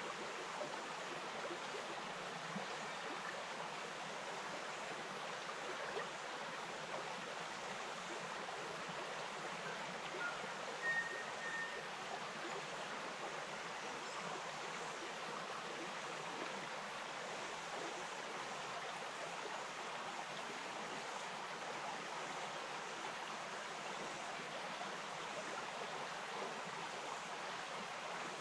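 A bush stream running with a steady rush of flowing water, and a brief high note about eleven seconds in.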